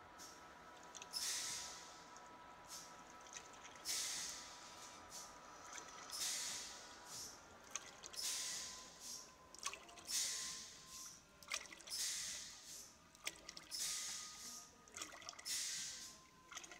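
Vertical packing machine for oil pouches cycling. It gives a hissing burst about every two seconds as each pouch is filled and sealed, over a faint steady whine.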